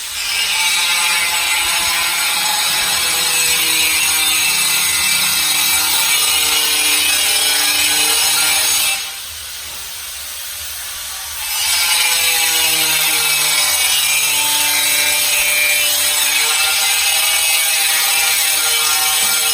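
Electric power saw cutting tile, running steadily under load with a hissing whine. It stops for about two seconds a little before halfway through, then starts cutting again.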